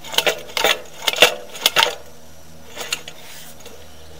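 Sewer inspection camera head and push cable knocking and clattering against the inside of the pipe as the camera is turned around at the cleanout: a quick run of sharp clicks and knocks over the first two seconds, then only a steady low electrical hum with an occasional faint tick.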